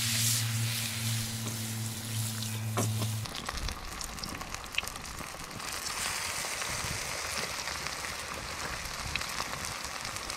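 Beer-battered fish fillets frying in hot oil in a pan over a campfire: a steady sizzle with scattered crackles and pops. A steady low hum runs under it and stops abruptly about three seconds in.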